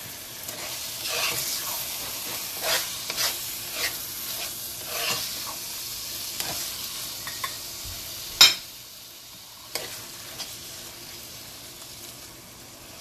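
Metal spoon stirring and scraping a thick mashed-carrot mixture in a nonstick frying pan, in short repeated strokes over a low frying sizzle. One sharp knock about eight seconds in; after it the stirring mostly stops and the sizzle goes on.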